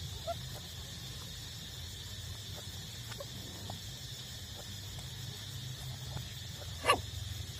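Nursing puppies giving a few faint squeaks, then one short, sharp squeal near the end. A steady low hum and a steady high hiss run underneath.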